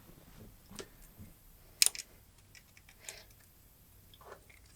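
Small metal hand tool clicking and scraping at the tiny set screw in a hydraulic cylinder's end cap while gunk is cleared out and the screw is taken out, with one sharp click about two seconds in.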